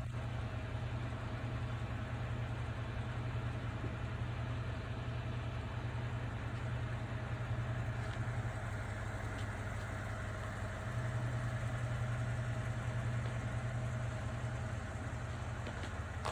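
Steady low mechanical hum, like an engine or large motor running, with a faint higher tone over it; it gets a little louder about eleven seconds in.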